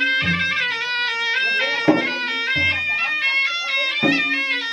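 Bugis-Makassar gendang ensemble: a double-reed shawm (puik-puik) plays a continuous melody over two double-headed gendang drums. The drums are struck with stick and hand in a steady pattern, alternating a deep thud and a sharp crack about once a second.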